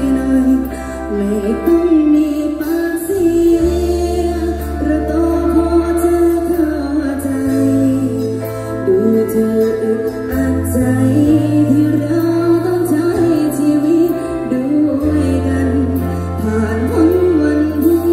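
Live band with a woman singing a melody into a microphone, backed by drums and electric guitar, with long held bass notes that change every few seconds.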